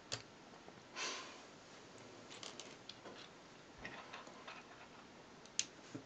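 Faint clicks and light rattles of small plastic LEGO pieces being handled and fitted together, with a sharp click just after the start, a brief swish about a second in, and another sharp click near the end.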